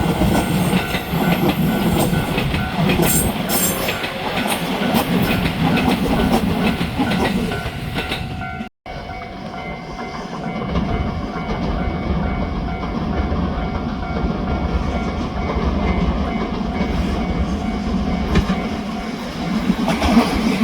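Commuter trains passing over a level crossing, wheels clattering over the rail joints, with the crossing's warning bell ringing steadily. The sound cuts out abruptly for a moment about nine seconds in, then another passage carries on.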